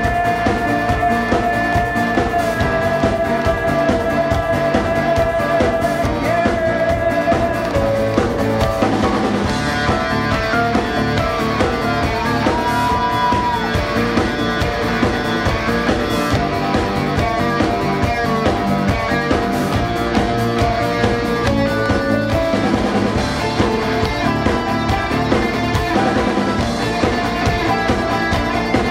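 Rock band playing live, an instrumental passage: electric guitar, bass guitar, drum kit and keyboards, with long held notes over a steady beat.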